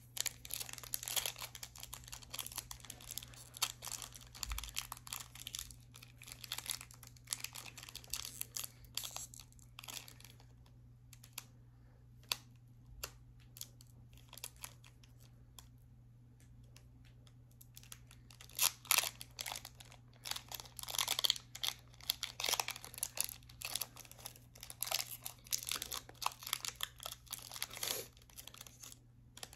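Pokémon trading-card booster pack's foil wrapper crinkling and tearing as it is opened by hand, in irregular bursts of crackling; it goes quieter for several seconds in the middle, then crinkles busily again.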